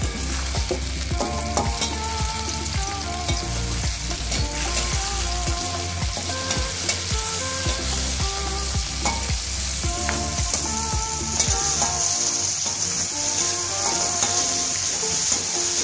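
Sliced shallots and tomato sizzling in hot oil in an aluminium wok, stirred with a metal spoon that clicks and scrapes against the pan: aromatics frying until soft and fragrant. The sizzle grows louder and brighter about eleven seconds in.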